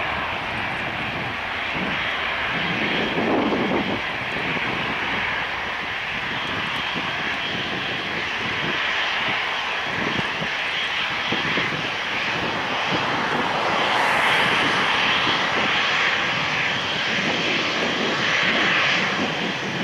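Boeing 737-800's CFM56-7B turbofan engines running at takeoff thrust as the jet accelerates down the runway and lifts off: a steady, hissing jet noise that swells a little towards the end.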